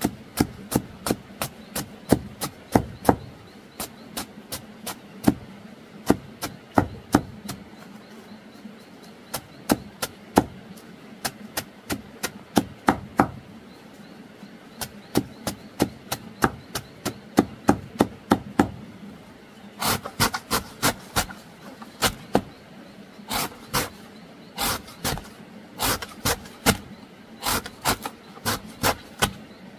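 A long, steady run of sharp strikes on wood, about two to three a second, with a chopping or hammering rhythm. The strikes grow louder about twenty seconds in.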